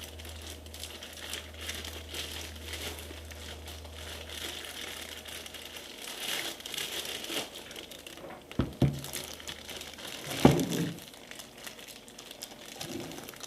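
Packaging being handled during an unboxing, crinkling and rustling, with a couple of knocks about nine and ten and a half seconds in, the second the loudest.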